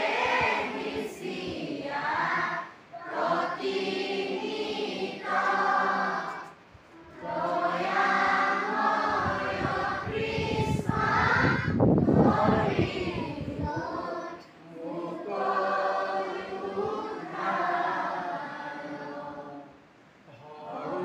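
A choir of teenage school students singing together, in sung lines a few seconds long with short breaks between them. A low rumble rises under the singing about halfway through.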